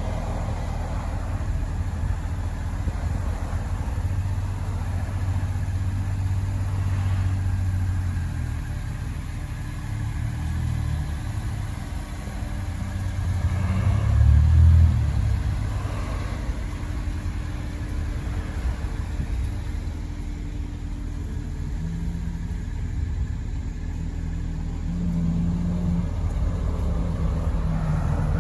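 Car engine idling with a steady low rumble, swelling louder for a moment about halfway through before settling back.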